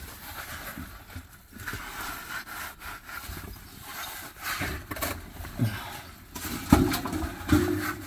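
Loose soil and rubble being prodded and scraped with a pole and falling away into an opening: irregular scraping and rattling with scattered knocks, the loudest knocks coming in the last few seconds.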